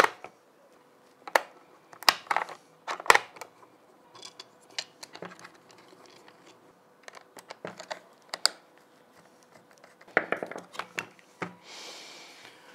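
Batteries pressed into a handheld digital multimeter's plastic battery compartment and the plastic battery cover fitted back on: a run of sharp plastic clicks and knocks, with a short rub near the end as the meter is turned over on the table.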